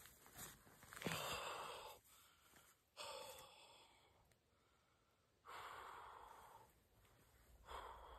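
A man breathing hard, with four heavy exhalations a second or two apart, winded from heaving a whitetail buck upright by its antlers.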